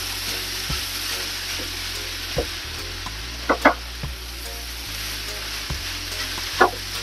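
Fried rice sizzling steadily in a hot pan as it is stirred and turned with a slotted spatula. The spatula knocks and scrapes against the pan now and then, loudest in a quick pair about three and a half seconds in and again near the end.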